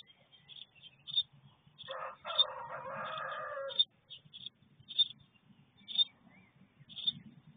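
A rooster crows once, a call of about two seconds starting about two seconds in. Throughout, a small bird gives short, high chirps, one every half second to second.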